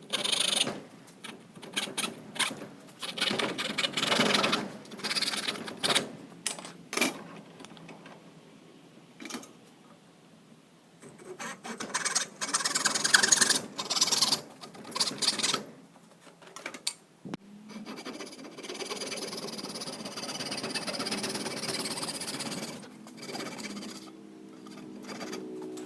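Saw cutting out knife handle scales, in several stretches of cutting broken by short pauses.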